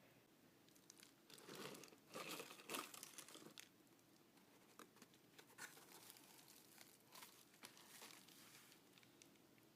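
Packaging crinkling and rustling as it is handled, in a cluster of crackles about a second and a half in, then scattered small clicks and rustles.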